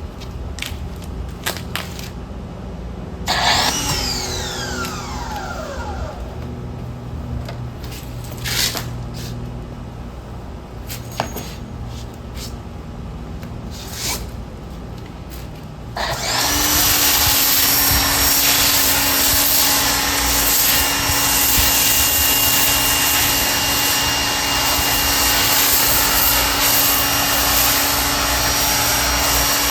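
Some handling clicks over a low hum, then about halfway through the Active 2.0 electric pressure washer kicks on and runs steadily, with the loud hiss of the spray as foam is shot through a foam cannon.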